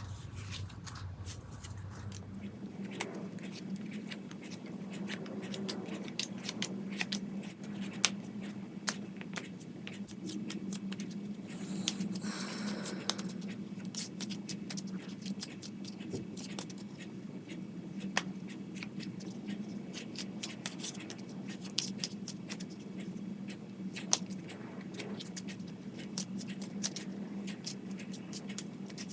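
Oracle cards being handled and shuffled on a table: repeated light clicks and snaps of cardstock, with a denser rustle about twelve seconds in. A steady low hum comes in after a couple of seconds.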